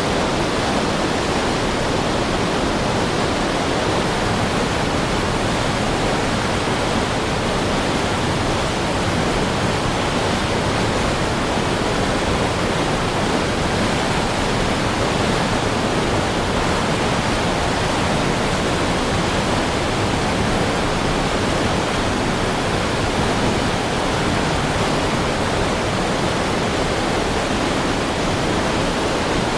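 Heavy river stream rushing: a steady, even roar of fast-flowing water.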